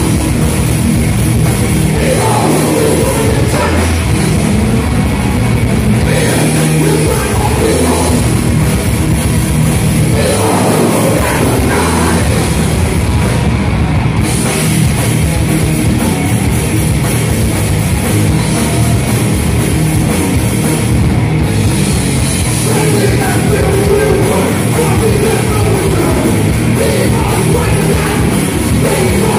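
Heavy metal music, loud and dense throughout, with a drum kit prominent; most likely a band playing live at the show.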